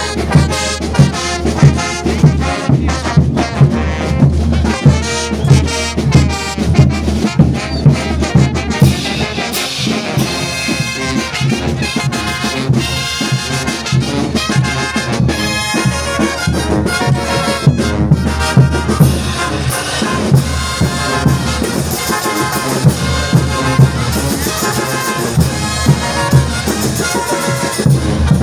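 Bolivian brass band playing: trumpets and trombones together over a steady beat.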